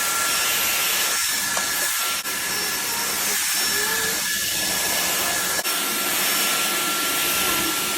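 Vacuum cleaner running steadily, a loud even hiss with a thin motor whine, as it cleans the air purifier's filters.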